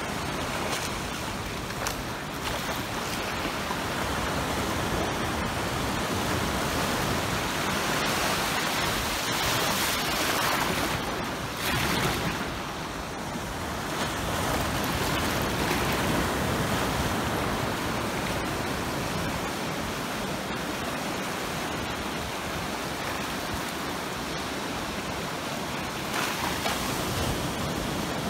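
Atlantic Ocean surf breaking and washing in around jetty rocks: a continuous rushing wash that swells louder as waves break, about ten seconds in and again near the end.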